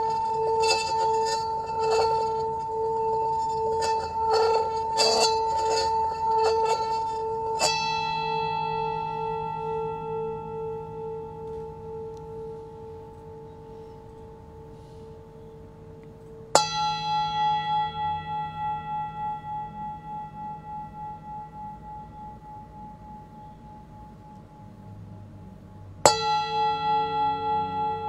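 Brass singing bowl sounding a steady, pulsing two-note tone with a light rattle of the wooden striker against the rim. It is then struck three times, about every nine seconds, and each strike rings out in a long, slowly fading tone that wavers up and down.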